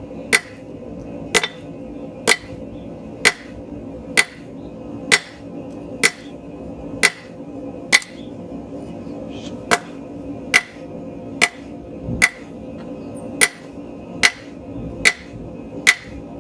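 Hammer blows on hot mild steel at an anvil, drawing out a square taper. The strikes come steadily about once a second, each with a bright metallic ring, with a short pause about nine seconds in. A propane forge hums steadily underneath.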